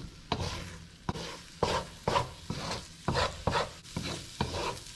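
A wooden spatula scraping and stirring scrambled eggs around a wok, about two strokes a second, over the steady sizzle of the eggs frying in hot oil.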